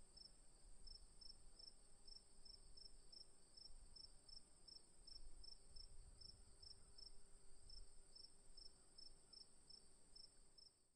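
Faint outdoor insect chorus: a steady high-pitched drone with short chirps repeating two or three times a second, over a low rumble.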